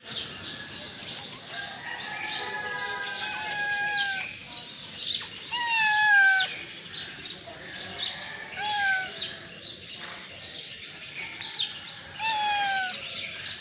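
Street cats meowing, about four drawn-out calls that fall in pitch, the loudest about six seconds in, while small birds chirp steadily in the background.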